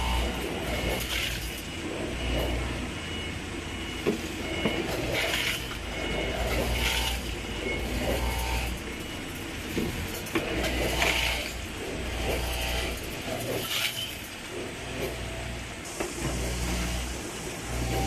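Popping boba filling and packing machine running: a low hum that comes and goes in stretches of a second or two, with short hissing bursts every two seconds or so and light rattling of the mechanism.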